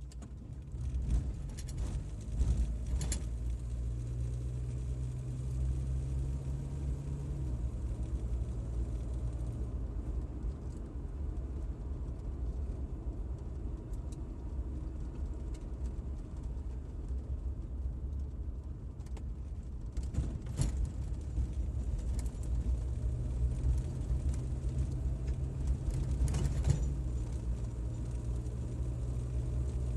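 Car engine and tyre noise heard from inside the cabin while driving, a steady low hum. The engine note rises twice, about four seconds in and again past twenty seconds, each time dropping back a few seconds later. A few short clicks and rattles are scattered through it.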